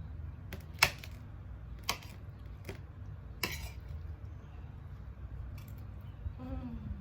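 Cutlery clinking against a plate during a meal: four sharp clicks in the first few seconds, over a steady low hum.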